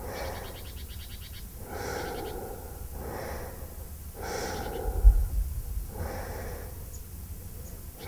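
A sleeping person breathing slowly and heavily, several of the breaths carrying a fluttering snore. A steady low rumble lies underneath, with a dull thump about five seconds in.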